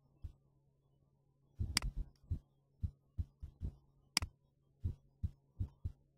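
Computer mouse being handled and clicked close to the microphone: short, dull thumps every half second or so, with two sharp clicks about two and four seconds in, over a steady low hum.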